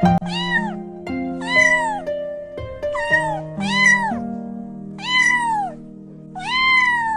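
Kitten meowing six times in short, high rising-and-falling cries, the last one longer and drawn out, over background music with sustained notes.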